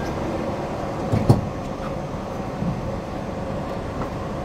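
Interior noise of a Nippori-Toneri Liner automated guideway train car on its elevated guideway: a steady rumble, with one sharp knock about a second in.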